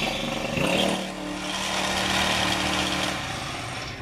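Small GX35 four-stroke brushcutter engine with a tiller attachment running under throttle. It revs up about half a second in, holds high revs steadily, then eases off near the end.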